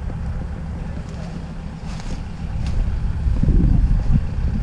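Wind buffeting the microphone: a gusty low rumble that swells about three seconds in, with a couple of faint clicks.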